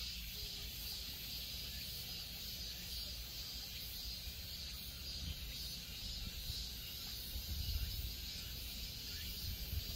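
Summer outdoor ambience by rice paddies: a steady high drone of insects, with wind rumbling unevenly on the microphone and swelling briefly near the end.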